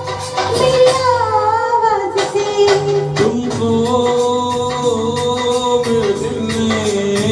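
Instrumental interlude of a Hindi film song: an ornamented melody line over a steady percussion beat, with no lyrics sung.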